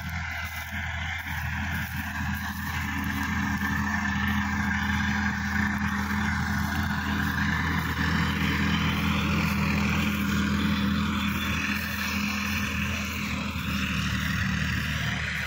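Sonalika DI-50 RX Supreme tractor's diesel engine running steadily as it pulls a tillage implement through the field. It grows louder as the tractor comes closer, is loudest about halfway through, then eases a little.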